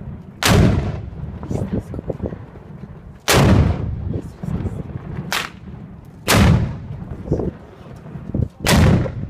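Black-powder guns fired one at a time: five loud shots, each a second or two apart, each with an echoing tail.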